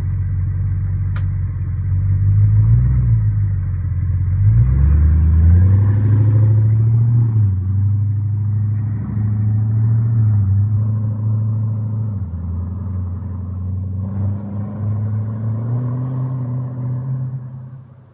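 Audi A8 D2's 3.7-litre V8 running with no exhaust fitted, revved up and down in several blips between steadier stretches.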